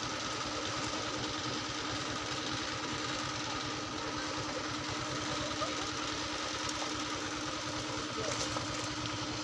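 An engine running steadily with a fast low chugging and a steady hum, with faint voices.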